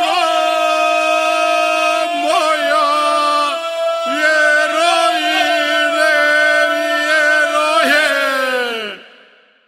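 Ganga, the traditional polyphonic folk singing of the Imotski region: voices holding long, loud notes in close, clashing harmony, the lead line wavering in short ornaments. Near the end the voices slide down together and the singing stops abruptly about nine seconds in.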